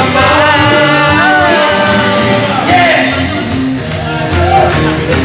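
Live band playing a song, with people close by singing along loudly.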